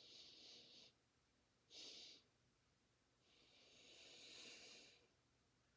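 A woman's quiet breathing through a cough-relief breathing exercise: an inhale ending about a second in, a short sharp extra sniff of air about two seconds in, then a longer breath out swelling and fading from about three to five seconds.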